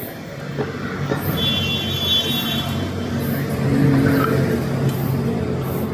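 Street traffic: vehicles running and passing, with a thin high squeal about a second and a half in.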